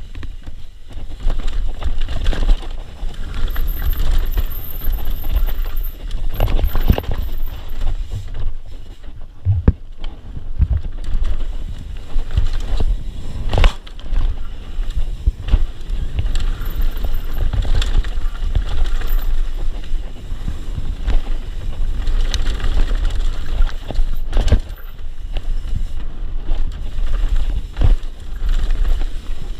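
Mountain bike riding fast down a rocky dirt trail: wind rumbling on the microphone, tyre noise, and many sharp knocks and rattles as the bike hits rocks.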